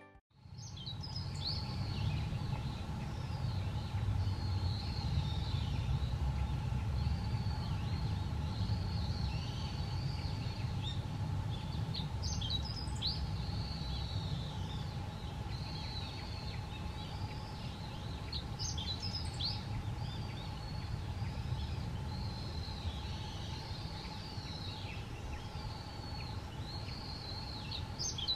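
Birds chirping and twittering continuously over a steady low rumble, with a few sharper sweeping calls about twelve seconds in, about nineteen seconds in and near the end.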